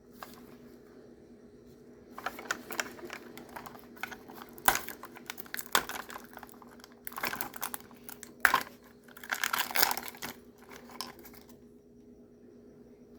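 Plastic packaging crinkling and clicking as it is handled and opened, in several bursts, over a steady low hum.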